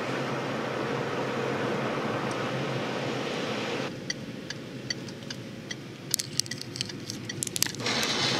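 Road and engine noise inside a moving car, which drops away about four seconds in as the car slows. A regular ticking, about two to three ticks a second, then follows, typical of a turn-signal indicator, with a burst of sharper rattling clicks near the end before the road noise comes back up.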